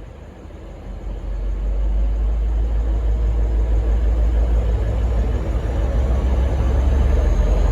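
V/Line N-class diesel-electric locomotive running under power as it departs, a deep engine rumble that grows louder over the first two seconds and then holds steady, with a faint rising whine high above it.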